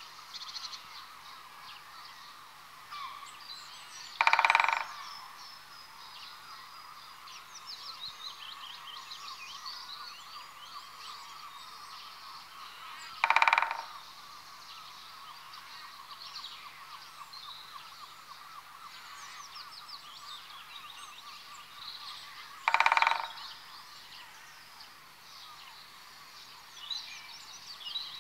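Great spotted woodpecker sounding three times, each a short loud burst of about half a second, roughly nine seconds apart. Other small birds twitter steadily in the background.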